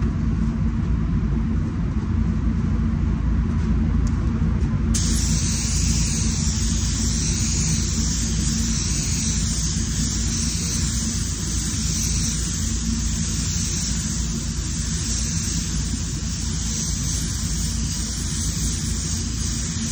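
Steady rumble of the paint booth's air fans, with a SATA Jet 5000 RP spray gun (1.3 mm nozzle) hissing as it sprays paint, its hiss cutting in suddenly about five seconds in and holding steady.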